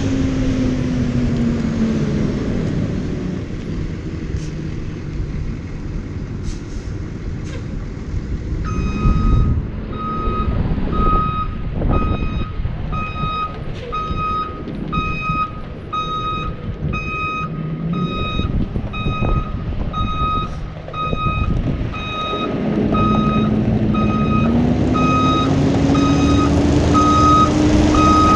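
Thomas C2 school bus reversing: its engine running throughout, with its backup beeper starting about nine seconds in and sounding a steady, evenly spaced beep about one and a half times a second. The engine note drops at the start and rises again over the last several seconds as the bus backs in.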